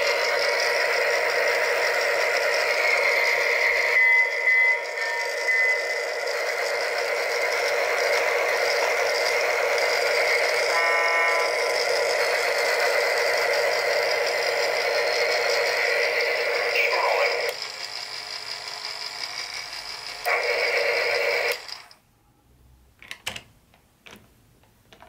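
Sound effects from the Lionel John Deere toy locomotive's small built-in speaker, tinny with no bass. They stop suddenly about 17 seconds in, play again briefly around 20 seconds and cut off near 22 seconds, followed by a few light plastic clicks.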